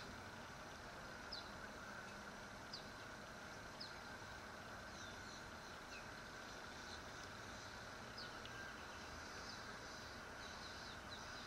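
Faint steady background hiss with short, high chirps about once a second, from small birds.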